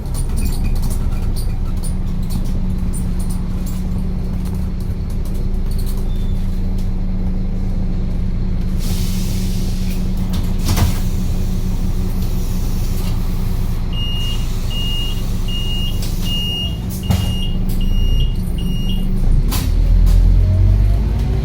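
A large road vehicle's engine running steadily at idle. About nine seconds in there is a short burst of air hiss. In the second half a string of seven short high beeps sounds, and near the end the engine's rumble grows louder.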